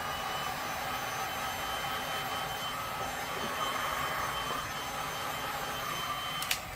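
Handheld heat gun running, its fan blowing with a steady high motor whine. It is switched off with a click near the end, and the whine falls away.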